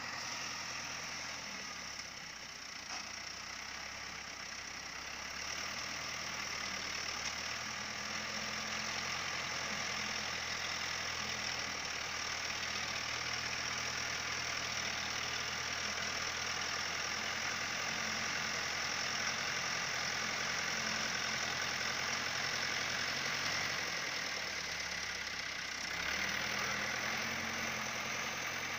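1999-model 640 tractor's diesel engine running steadily as the tractor pushes soil with its front blade, getting a little louder near the end.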